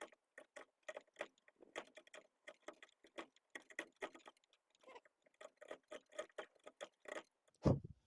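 Hand chisel chipping and paring green-wood fibres out of a drilled-out wooden mug blank: a quick, uneven run of short crunching clicks, about three or four a second, with one louder thump near the end.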